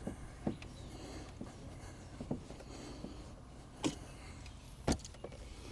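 Scattered sharp clicks and knocks of hose clamp pliers being worked on a hose clamp, about four distinct ones over a few seconds.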